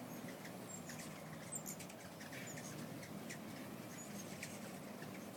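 Hummingbirds swarming at feeders: a steady low hum of many beating wings, with scattered short, high squeaky chip calls.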